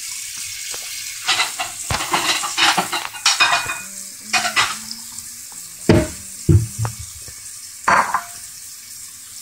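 Kitchen faucet running a thin stream of water into a stainless steel sink, a steady hiss and splash. Over it come bursts of clattering and a few knocks against the sink, the loudest about six seconds in.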